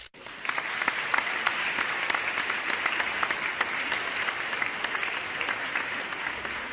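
Crowd applause, many hands clapping at once, starting abruptly.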